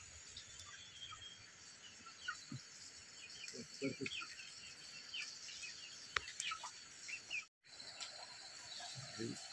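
Faint outdoor ambience: a steady high insect hum with scattered short bird chirps, and one sharp tick about six seconds in.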